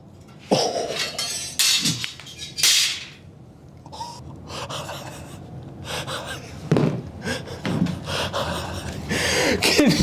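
A man's excited gasps and heavy breaths, with a few short voiced exclamations and knocks as the wooden lever board is picked up and handled.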